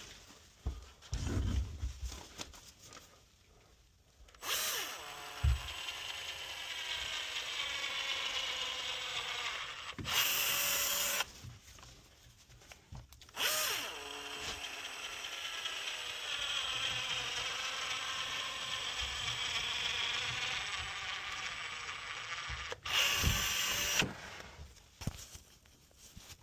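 Caulk gun dispensing sealant into the gap around a window frame: a steady mechanical whir in two long runs of several seconds, each ending in a brief louder burst, with a few low handling thumps near the start.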